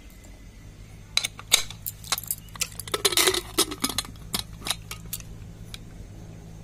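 Aluminium pressure cooker lid being fitted and locked onto the pot: a run of metal clicks and clanks, with a scraping sound about three seconds in as the lid is seated and turned, then the handles brought together.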